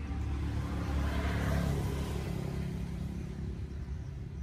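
A vehicle passing close by: its noise swells to a peak about a second and a half in and then fades, over a steady low rumble.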